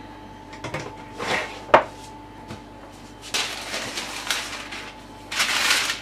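A baking tray set down with a few knocks and one sharp clack, then a sheet of parchment paper rustling as it is spread over the baked pastry and pressed down by hand.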